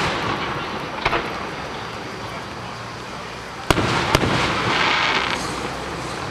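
Aerial fireworks bursting in the sky: sharp bangs, the loudest about four seconds in and a second one just after it, followed by a spell of crackling.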